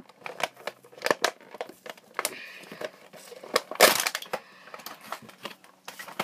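Plastic blister packaging of an action figure being handled and opened: irregular crinkling and crackling with sharp clicks, and one louder crunch nearly four seconds in.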